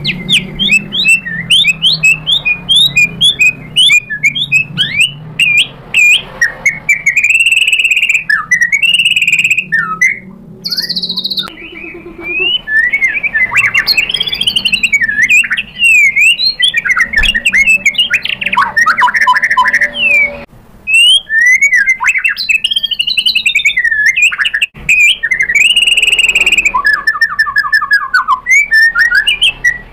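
White-rumped shama singing a long, rapid, varied song of whistles, chirps and trills, broken by a few brief pauses, with a fast run of short repeated notes near the end.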